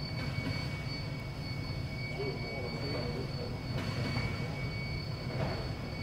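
Steady low machinery rumble filling a large hangar, with a thin steady high-pitched tone held over it.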